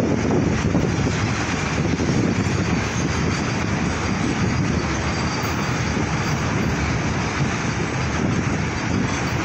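Container freight train wagons rolling past on an elevated track: a steady rumble of steel wheels on rails.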